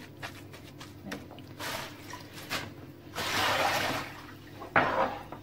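Hands squishing and kneading a wet ground-meat and coarse-bulgur filling in a plastic bowl: scattered soft wet squelches and taps, with a longer burst of rustling noise just after three seconds.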